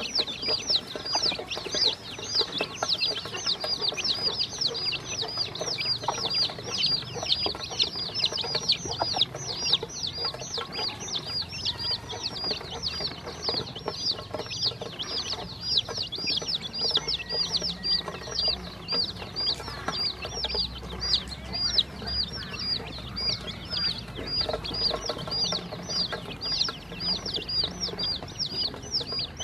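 Baby chicks and ducklings peeping steadily, a fast run of short high peeps, about three or four a second, that never stops.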